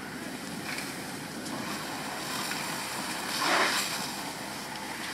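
Fire hose stream spraying water onto the smouldering wreckage of a burned RV: a steady rushing hiss. About three and a half seconds in, a louder whoosh swells up and fades within half a second.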